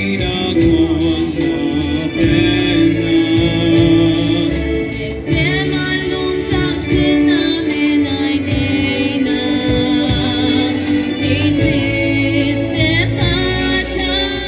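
Live wind band playing with a steady beat while a singer sings into a microphone over it.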